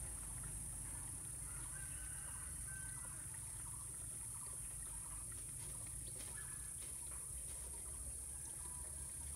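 Quiet rural outdoor ambience: a steady high-pitched insect drone with faint short bird calls scattered through it over a low rumble.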